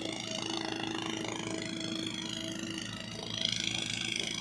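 JCB backhoe loader's diesel engine running under load as the digging arm lifts a full bucket of soil, with a steady whine over the engine sound and a pitch that rises and falls gently.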